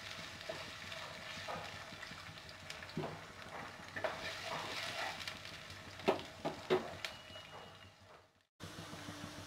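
Sliced onions, garlic and green chillies frying in oil in a non-stick pan with a soft sizzle, while a wooden spatula scrapes and taps the pan several times. The sound fades and drops out briefly near the end, then the sizzling carries on.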